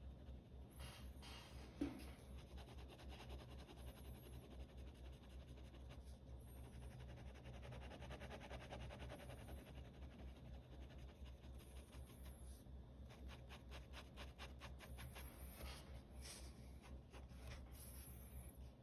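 Faint scratching of a pen nib on sketchbook paper in quick, repeated hatching strokes, the strokes coming faster in the second half. There is a single knock about two seconds in, over a steady low hum.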